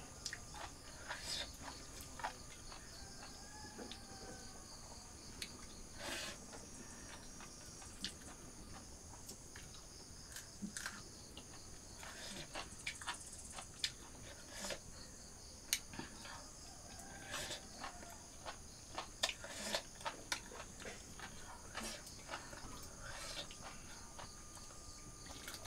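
Quiet eating sounds: fingers mixing rice and curry on a metal plate, with small scattered clicks and ticks. Chickens cluck faintly in the background.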